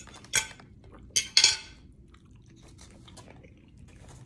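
Close-up chewing and crunching of food, with two loud crunches in the first two seconds, then faint chewing clicks.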